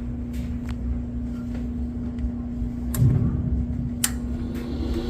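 Gas furnace starting up on a newly fitted control board: a steady electrical hum with a few light clicks and a low thump about three seconds in, and the draft inducer motor beginning to whine upward right at the end.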